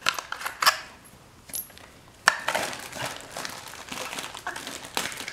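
New spark plugs being handled and set down on a shop towel: a few light clicks and knocks, the sharpest a little over two seconds in, followed by soft rustling of packaging.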